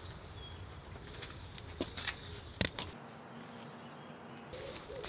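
Quiet outdoor garden ambience with a few soft footsteps on cobblestones, two to three seconds in, and faint bird chirps.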